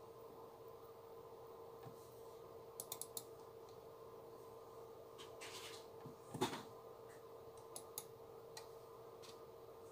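Computer mouse clicks at a desk: a quick cluster of clicks about three seconds in and two more near the end, over a faint steady hum. A single louder knock about six and a half seconds in.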